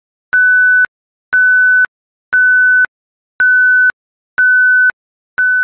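Electronic beep: one steady high tone sounding six times, about once a second, each beep about half a second long with silence between.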